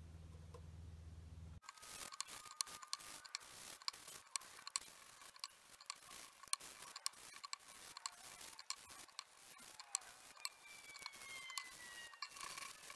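Sanding sealer being wiped onto a pine and plywood bowl with a cloth while the bowl is turned by hand on the stopped lathe, giving faint irregular clicks and light rubbing. A low steady hum in the first second or two stops suddenly.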